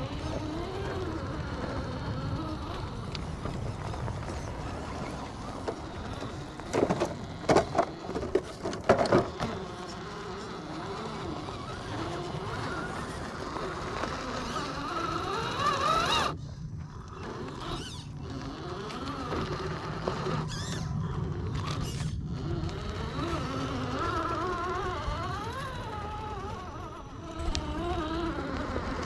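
Scale RC rock crawler's brushed 540 electric motor and geared drivetrain whining, the pitch rising and falling with the throttle as it crawls over rock. A quick run of sharp knocks about a quarter of the way in stands out as the loudest sound, and the whine drops out briefly several times in the second half.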